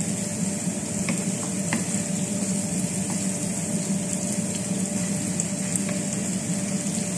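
Chopped onion and garlic sizzling steadily in hot oil in a frying pan while a wooden spoon stirs them, with a few light taps of the spoon.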